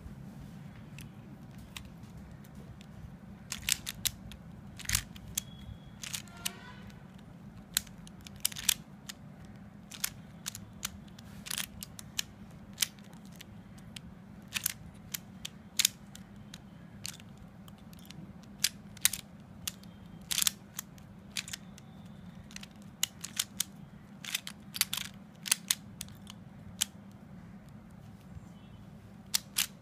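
Plastic QiYi Qiming A Pyraminx being scrambled by hand: irregular sharp clicks and clacks as its layers and tips are snapped round, coming singly and in quick clusters with short pauses between.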